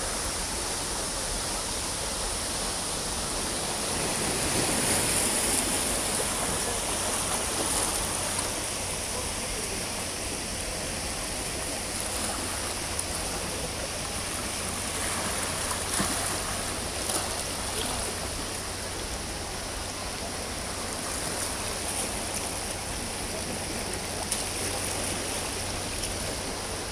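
Waterfall plunging onto the seashore: a steady, unbroken rush of falling water, with a couple of brief faint knocks about sixteen seconds in.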